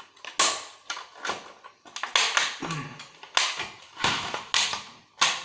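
Plastic casing of an old set-top TV recorder cracking and snapping as it is forced apart by hand: a rapid, irregular series of sharp cracks and clicks.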